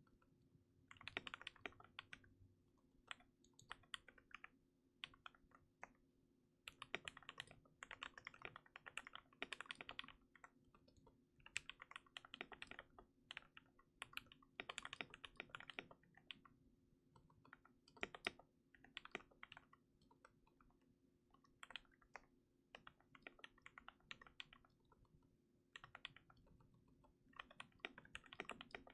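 Typing on a KBD67 MKII custom mechanical keyboard with lubed and filmed Gateron Yellow linear switches on a brass plate in a silicone-dampened case: quick runs of keystrokes in bursts, with short pauses and a few louder single strokes between them.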